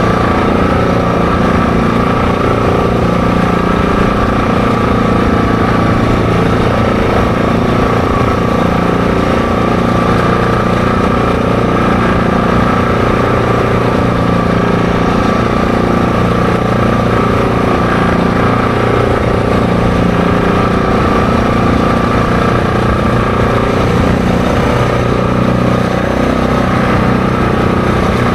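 ATV engine running at a steady cruise, its level and pitch holding even throughout.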